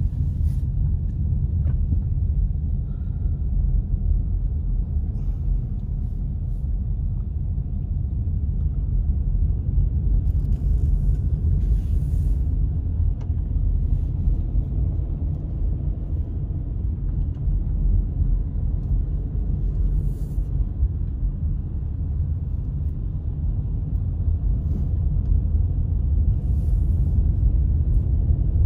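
Steady low rumble of a moving car heard from inside the cabin: engine and snow tires on wet, freezing road. A few brief faint hisses come and go over it.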